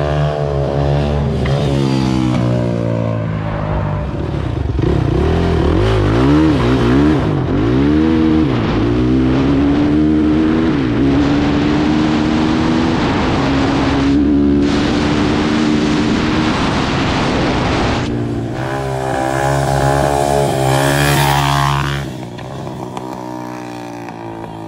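Sport quad (ATV) engine under way, revving up and down through repeated throttle changes, then holding a steady pitch while cruising, with a rising rev near the end before the sound drops away.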